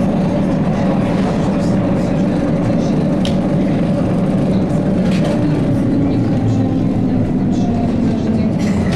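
Cabin noise inside a ZiU-682G trolleybus under way: a steady low drone of the electric drive and rolling wheels, with a few light clicks.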